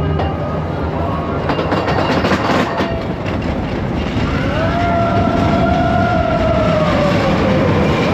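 Expedition Everest roller coaster train running along its track, a loud rushing rumble with clattering early on. In the second half a rider gives one long held scream.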